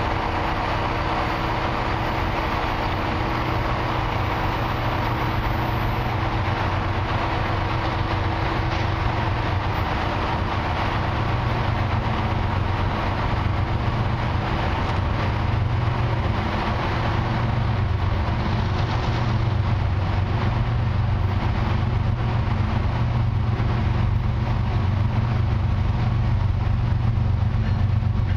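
Diesel locomotive engines running with a steady low drone that grows slowly louder toward the end as the lead units of a long freight train approach.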